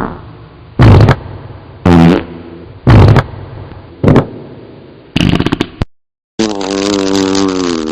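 Comedic fart sound effects: four short loud farts about a second apart, a short crackly one about five seconds in, then a long drawn-out fart with a slowly falling pitch.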